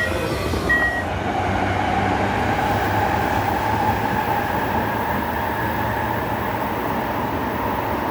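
Tsukuba Express TX-2000 series train heard from inside the car, with a short high beep about a second in. Then comes the train's running noise, a rumble with a steady whine, which swells over the first couple of seconds and then holds steady.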